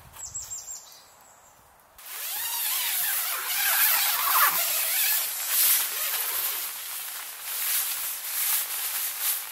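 Heavy rain pattering on a tent's fly and clear window panel, starting suddenly about two seconds in, with the rustle of the tent's inner fabric window cover being rolled up over the first few seconds of it.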